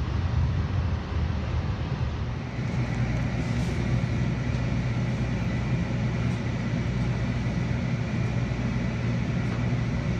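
RTD light rail train running on a city street: a steady low hum over traffic noise, with a thin high whine setting in about two and a half seconds in.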